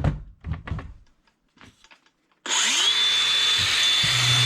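A handheld power tool switched on about halfway through, its motor whine rising quickly and then holding a steady high pitch. About a second and a half later a lower hum joins in.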